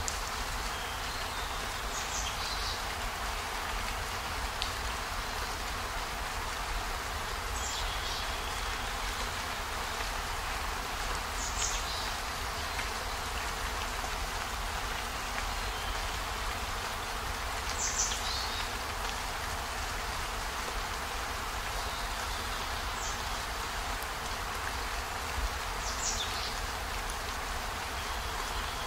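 Steady rain hiss, with a short high chirp every few seconds.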